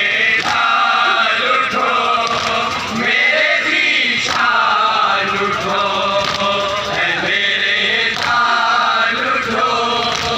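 A group of men chanting a noha, a Muharram mourning lament, in unison behind a lead reciter, with a sharp slap of chest-beating (matam) about every two seconds.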